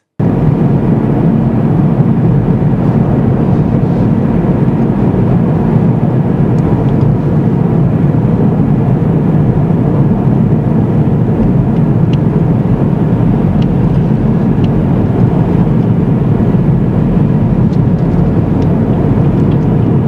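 Car driving along a road, heard from inside the cabin: steady low tyre and engine noise.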